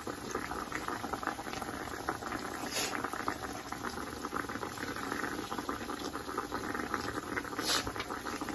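Thin coated pieces of deer backstrap shallow-frying in hot grease in a cast-iron skillet: a steady, dense crackle and sizzle. Two sharper clicks stand out, about three seconds in and near the end.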